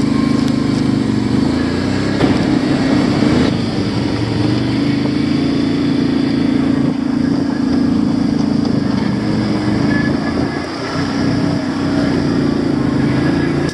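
An automatic ATV's engine running steadily under way, with a slight dip in level about ten seconds in.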